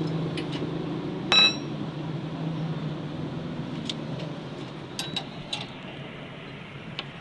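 One sharp, ringing metallic clink about a second in, then a few light metal clicks, over a steady low hum: steel hand tools and brake parts knocking together as a disc-brake caliper's slide pin is worked loose.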